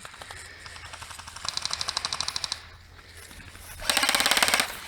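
Airsoft electric guns firing full-auto bursts, a rapid even rattle of shots. A fainter burst comes about a second and a half in and lasts about a second. A louder, closer burst follows near the end.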